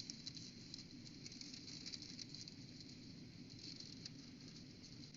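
Faint close-up chewing with wet lip-smacking: a continuous run of small mouth clicks.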